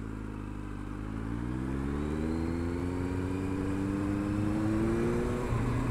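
Motorcycle engine under way, its pitch climbing steadily for about four seconds as it accelerates, then dropping near the end.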